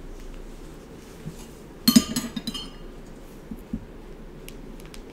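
Metal spoon clinking against a plate: a quick cluster of clinks about two seconds in, the loudest sound, then a few lighter taps.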